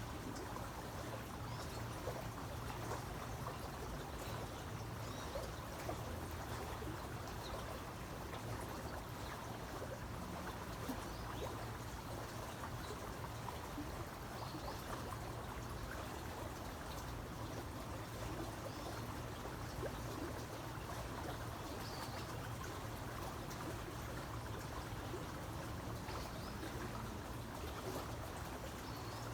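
Creek water flowing steadily, a continuous even rush of running water, with faint short high chirps now and then.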